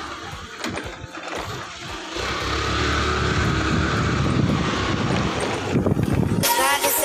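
Small scooter engine running while riding, its sound growing louder and steadier about two seconds in. Electronic music starts near the end.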